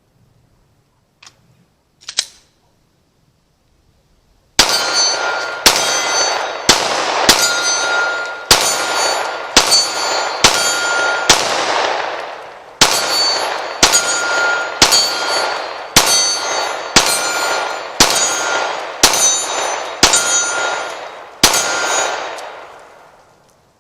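Glock 19 9mm pistol firing a full magazine: about fifteen sharp shots roughly one a second, each with a long echoing tail, with a short pause about halfway. A couple of small clicks come before the first shot.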